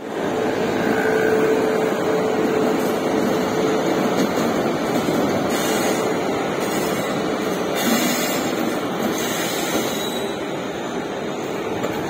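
Indian Railways WAP-7 electric locomotive moving off slowly and passing close by, a loud, steady running noise of the locomotive and its wheels on the rails. A held hum sits over it for the first few seconds.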